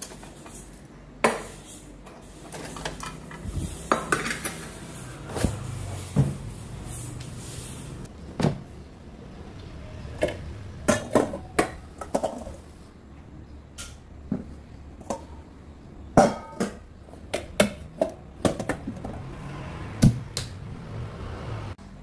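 Kitchenware clattering as it is handled: metal measuring cups, plastic bowls and a stainless steel mixing bowl knocking and clinking together, in many short, irregular clanks.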